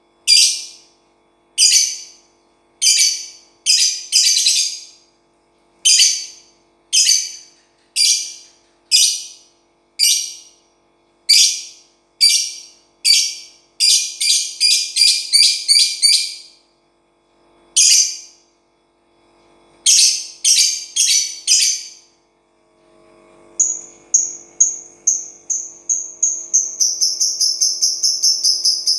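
Lovebird chirping: sharp, high chirps about once a second, a quick run of chirps in the middle, and a rapid trill near the end. A faint steady low hum lies underneath.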